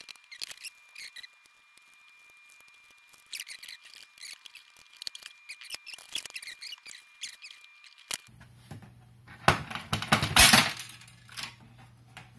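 Hand-tool and handling noises on small metal hardware: scattered light clicks and scrapes, then a louder scraping rustle about ten seconds in.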